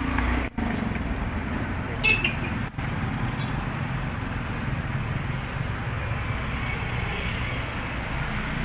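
Steady low rumble of background road traffic, with one short sharp sound about two seconds in.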